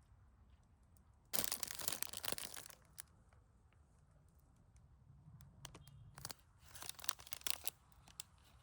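Plastic packaging crinkling and rustling as it is handled, in two bouts: a loud one lasting about a second and a half, starting about a second in, and a shorter crackling one near the end.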